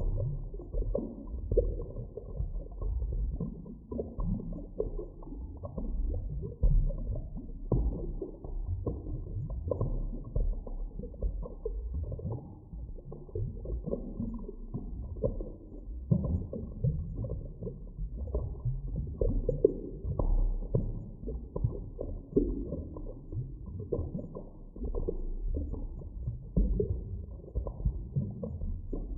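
Deep underwater ambience: a low, muffled rumble that swells and ebbs irregularly, with nothing in the higher range.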